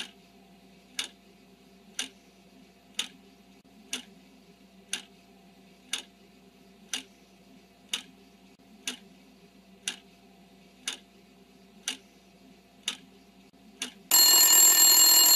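Quiz countdown timer sound effect: a clock ticking once a second over a faint low hum. About fourteen seconds in, a loud alarm bell rings for about two seconds as time runs out.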